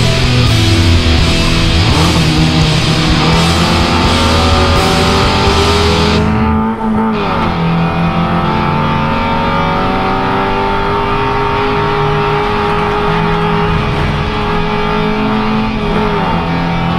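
Rock music with electric guitar laid over the in-car sound of a Nissan Pulsar N14 SSS race car's engine. The engine climbs steadily in revs for several seconds, then drops at a gear change near the end.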